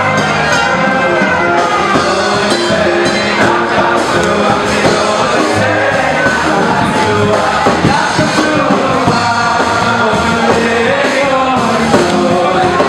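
Loud Jewish dance music with singing and a steady beat.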